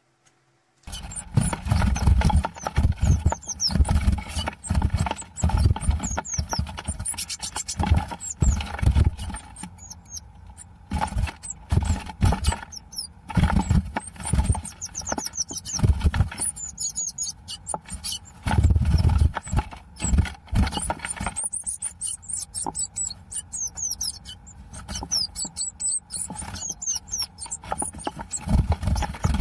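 Many short, high-pitched squeaking chirps from small animals, quick and falling in pitch, over frequent low thumps and bumps. The sound starts about a second in.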